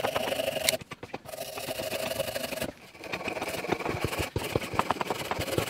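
Folding pruning saw cutting a slot into the end of a wooden dowel with quick back-and-forth strokes, pausing briefly twice.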